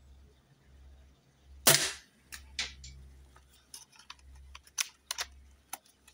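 A single sharp shot from a .22 CO2-powered replica Barrett air rifle about two seconds in, followed by a scatter of light clicks and ticks.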